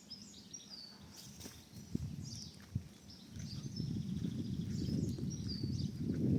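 Small birds chirping with short repeated calls, while a low rumbling noise builds up in the second half and becomes the loudest sound near the end.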